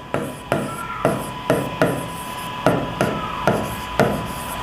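A pen writing a word on a board: about ten sharp taps, roughly two a second, each followed by a short scrape as the tip strokes across the surface. A faint steady high tone runs underneath.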